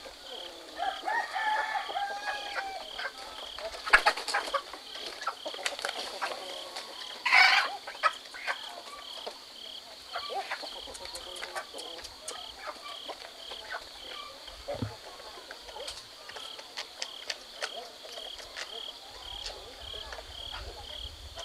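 A rooster crows once about a second in, and chickens cluck now and then, over a steady pulsing high trill of insects. A short, loud, shrill cry cuts through about a third of the way in.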